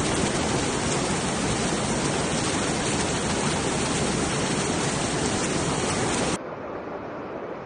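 Loud, steady rush of water from a flood. About six seconds in it cuts off abruptly to a fainter, duller water noise.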